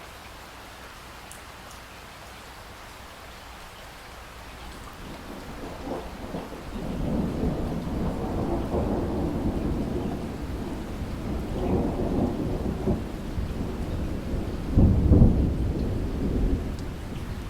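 Steady rain, with a long roll of thunder building from about five seconds in. It rumbles in several swells, the loudest near the end, then eases off.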